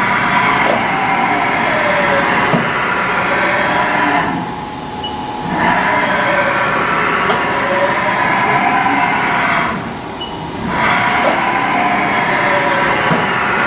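Haas VF-5 vertical machining center's Z axis being jogged back and forth: servo drive whining with the way covers sliding, in three runs of about four seconds with short stops between them.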